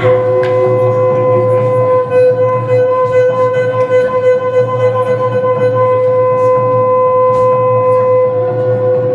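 A wind instrument holds one long, steady note for about nine seconds over a constant low drone; it steps up to this note at the start and falls back to a lower note near the end.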